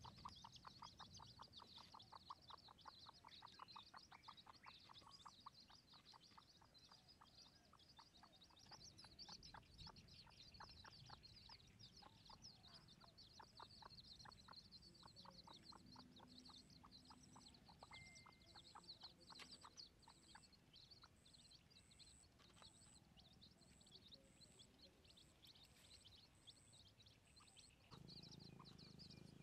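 Wild chicken chicks peeping softly and continuously in quick high calls, with a faster pulsing call, about four a second, in the first half, and a high, evenly spaced beeping, about two a second, in the second half.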